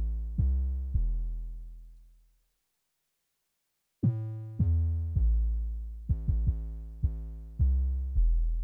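Synth bass from the Vital soft synth, a sine wave layered with a triangle wave, playing a run of short, decaying notes. Each note opens with a quick downward pitch blip from an envelope on the sine oscillator's pitch, giving it a small percussive knock at the start. The notes stop for about a second and a half in the middle, then a quicker run starts.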